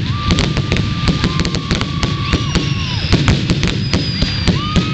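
Fireworks going off in quick succession: many sharp bangs and crackles, with long steady whistles sounding over them, one held for a couple of seconds and another starting near the end.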